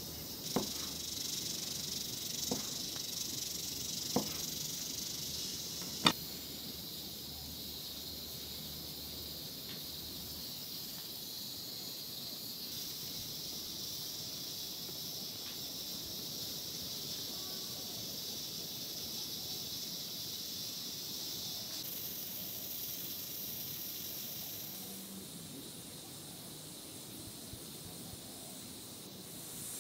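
A steady high hiss, with four sharp clicks in the first six seconds, the last one the loudest; the hiss drops a little near the end.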